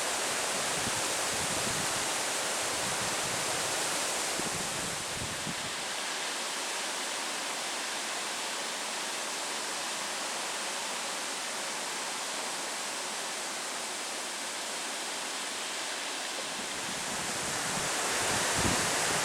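Steady wind hissing, with low rumbling gusts buffeting the microphone for the first few seconds and again near the end.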